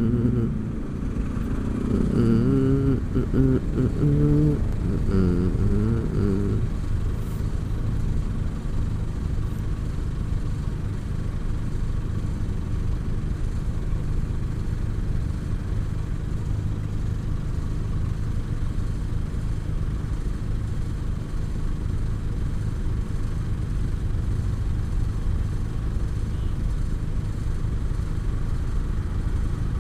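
Automatic scooter's engine running with a steady low rumble while riding. For the first six seconds or so a person hums a wavering tune over it.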